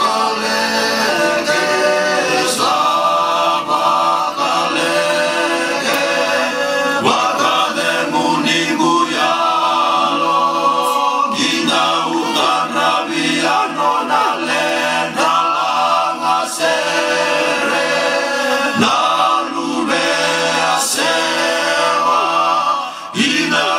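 A group of voices singing a Fijian song in multi-part harmony, sustained and continuous.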